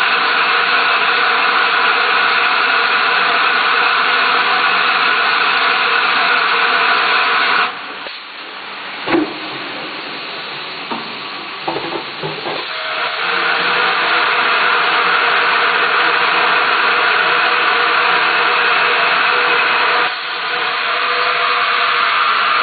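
A 5-gallon water bottle filling machine running with a loud, steady hiss. About eight seconds in the hiss drops away for roughly five seconds, and a few sharp knocks sound during the lull. It dips briefly again near the end.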